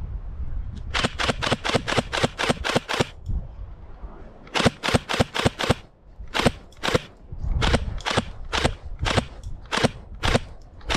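Airsoft gun firing single shots in quick strings: about ten sharp cracks at roughly five a second, a short pause, then several more strings of shots with gaps between them.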